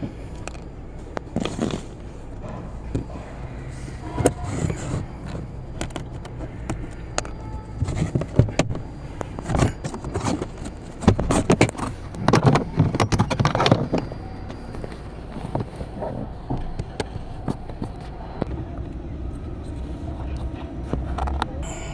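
Hands working on car interior parts: scattered clicks and knocks, with bursts of scraping and rustling from about 8 to 14 seconds in, over a steady low hum.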